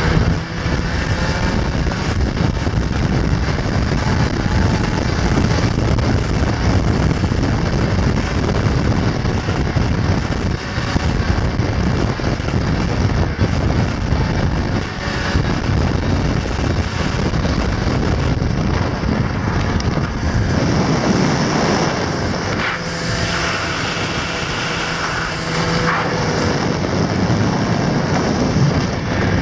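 Snowmobile engine running steadily at speed, mixed with heavy wind rushing over the microphone.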